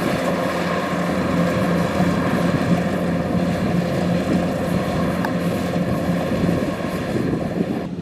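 Kubota DC-105X rice combine harvester running steadily, a dense mechanical drone from its diesel engine and working machinery.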